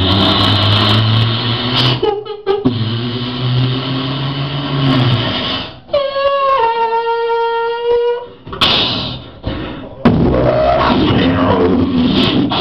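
A man making sound effects with his voice into a microphone. First a low droning hum, then a clear pitched tone that steps down a little, then sharp noisy bursts.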